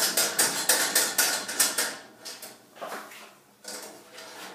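Small metal mailbox door and its lock rattling under a hand: a quick run of sharp metallic clicks and knocks for about two seconds, then a few scattered knocks.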